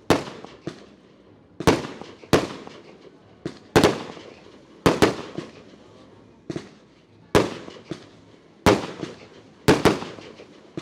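Aerial firework shells bursting: about fifteen sharp bangs at irregular intervals, some in quick pairs, each dying away over a second or so.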